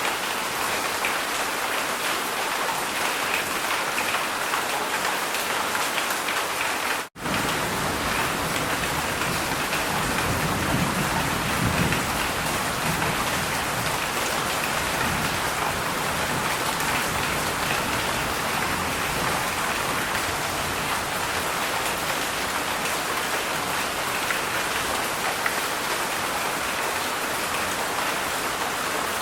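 Heavy rain falling steadily, a dense even hiss of drops. The sound drops out for an instant about seven seconds in, and a low rumble swells under the rain around ten to twelve seconds in.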